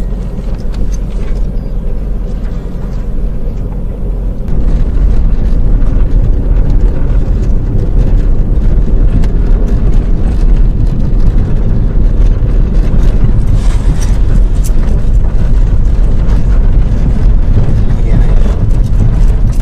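Car running with the occupants inside, heard from within the cabin as a steady low rumble that gets louder about four and a half seconds in.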